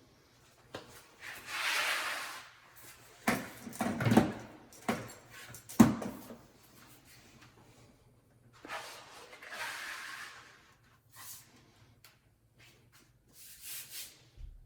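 Hand work on a floor: a few scraping or rubbing swishes, each about a second long, and a run of sharp knocks and clatters near the middle.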